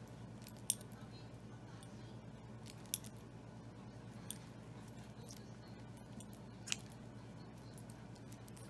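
Faint handling sounds of hands working a plastic crochet hook through yarn: about four scattered sharp little clicks over a steady low hum.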